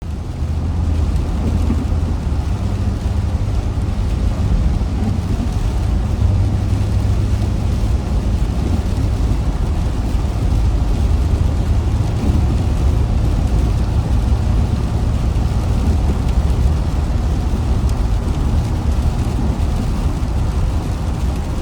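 A car driving in the rain: a steady low rumble from the moving car with an even hiss of rain over it.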